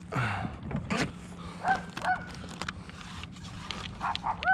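A bird honking: two short pitched calls about two seconds in and another at the end, with a few sharp knocks and rustling in between.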